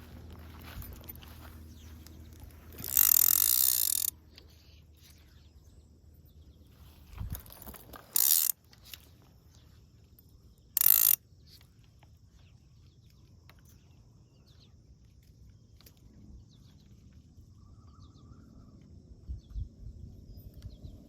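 Fishing reel's click ratchet buzzing in three short bursts, the first about a second long and the other two brief.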